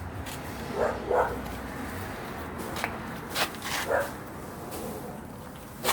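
A dog giving a few short barks, two close together about a second in and another near four seconds, with a few sharp clicks in between.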